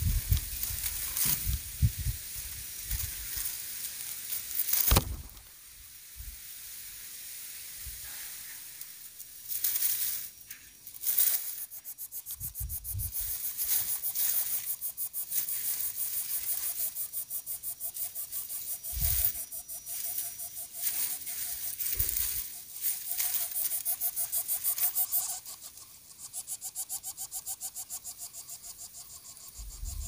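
Lesser coucal chicks in the nest making quick, evenly repeated raspy hissing breaths for long stretches, with a faint tone in some of them. A few knocks in the dry grass of the nest come in between.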